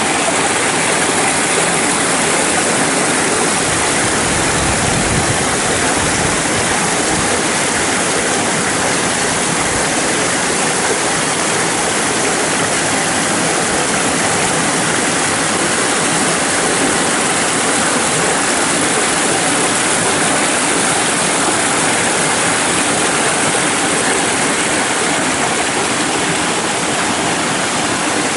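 Muddy rainwater runoff rushing and splashing over rocks in a small cascade of a rambla, a normally dry gully, running after heavy rain. The rush is loud and steady throughout.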